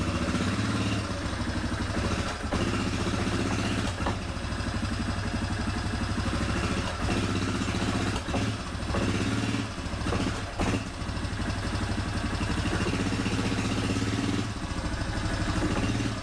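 Small engine idling steadily, with a few short dips in level.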